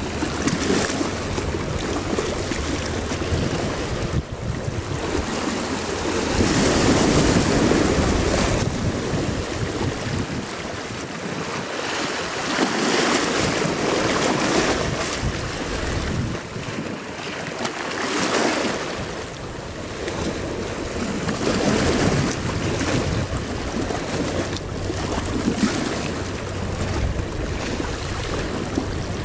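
Wind gusting over the microphone and choppy harbour water, the noise swelling and easing every few seconds, with a low steady hum underneath.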